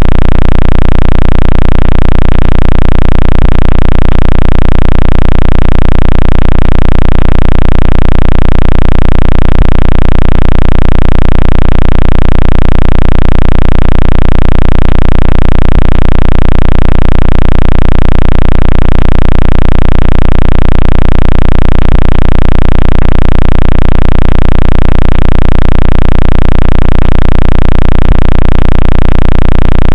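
Synthetic water-ejection sound played at full volume: a steady, very loud deep tone that pulses about three times a second, with a hiss-like noise over it. It is meant to shake water out of a phone's speaker and charging port.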